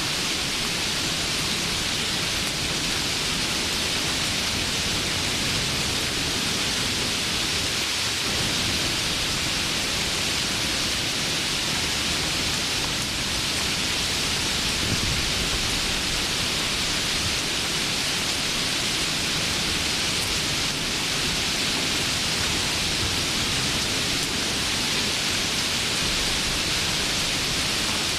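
Steady rain falling, a constant hiss with no breaks or changes.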